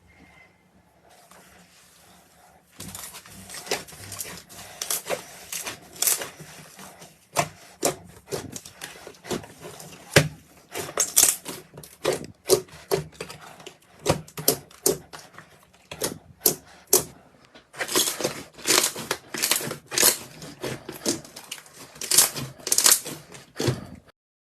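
Slime being squeezed and poked by hand, giving a dense, irregular run of sharp clicks and pops that starts about three seconds in and stops just before the end.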